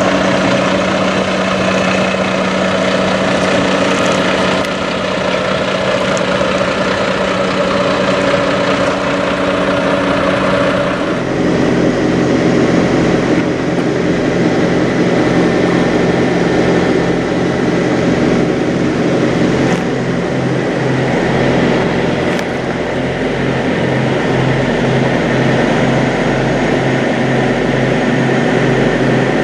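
Diesel semi-truck engines idling steadily. The engine note changes abruptly about a third of the way in, to a low, even throb.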